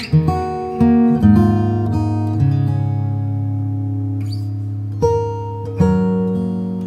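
Hsienmo Spring GA cutaway acoustic guitar played fingerstyle in a slow chord progression, each chord plucked and left to ring. A low bass note is held under one long ringing chord through the middle, and fresh chords come in near the end.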